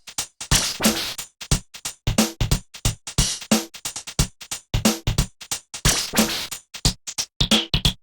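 Samsung SGH-P777 polyphonic ringtone: an electronic synthesizer tune over a busy, sharp drum-machine beat.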